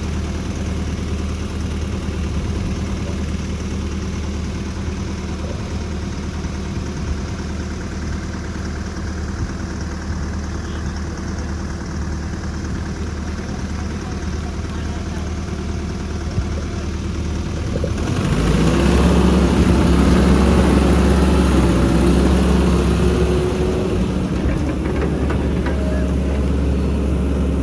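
Heavy diesel engine of construction machinery running at a steady low drone, then revving up about two-thirds of the way through and working louder for several seconds before easing off a little.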